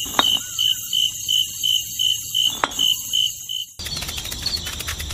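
A high chirp pulsing about three times a second over a steady high tone, with two sharp clicks. About four seconds in it cuts abruptly to a busier chirping ambience full of rapid ticks.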